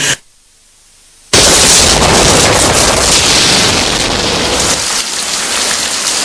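The singing breaks off into a quiet gap of about a second. Then a sudden loud burst of noise sets in and carries on as a steady, even rush.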